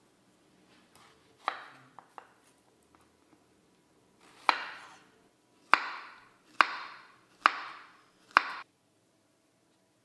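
Kitchen knife slicing a banana on a wooden cutting board: a series of cuts, the last five about a second apart, each a sharp tap of the blade on the board with a short fading tail. The sound cuts off suddenly near the end.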